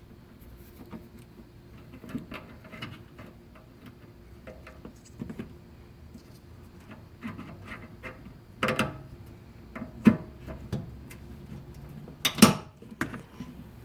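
Pliers setting hose clamps on a rubber power steering return hose: scattered metal clicks and knocks with handling noise between them, the loudest about nine, ten and twelve seconds in.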